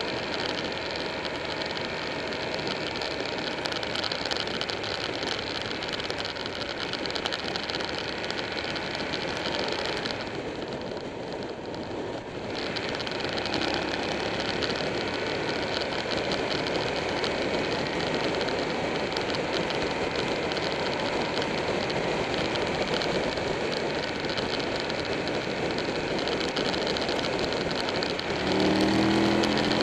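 Buell 1125R's V-twin engine running at road speed under a steady rush of wind noise on the camera's microphone. The hiss eases for a couple of seconds about ten seconds in. Near the end the engine note rises and grows louder as the bike accelerates.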